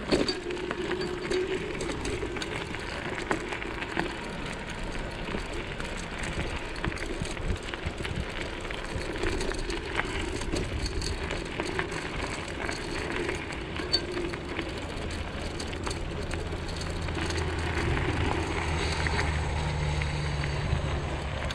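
Bicycle rolling along a gravel road: a steady crunch of tyres on loose gravel with many small clicks and rattles, and a low hum that grows over the last few seconds.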